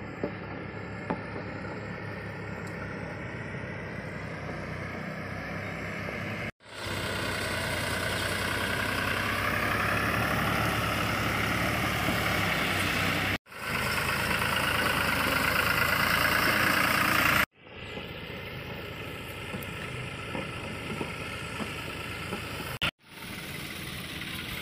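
Diesel farm tractor engines running as the tractors push and level soil with front-mounted blades. The sound is steady, louder through the middle stretch.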